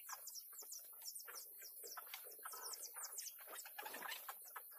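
A rapid, steady series of high, falling chirps, about five a second, from an animal calling in the forest, over faint crackling from an eggplant roasting on charcoal embers.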